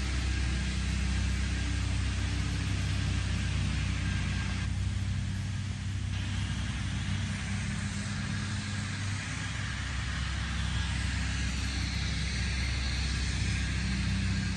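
An engine running at a steady speed with a low, even hum.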